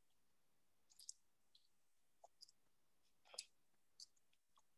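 Near silence: faint room tone with a few soft, short clicks.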